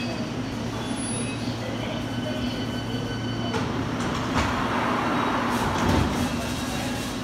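London Underground S Stock trains standing at the platform, their on-board equipment giving a steady low hum, with a louder rush of noise about four to six seconds in, as the doors of one train close.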